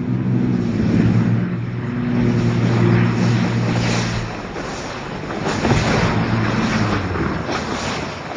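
Aircraft engine drone with wind noise: a steady pitched hum that fades about four seconds in and returns briefly.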